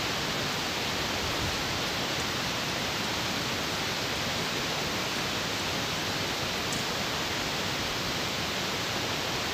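Spice paste with chopped tomato sizzling in hot oil in a metal kadai while it is fried down, a steady, even hiss.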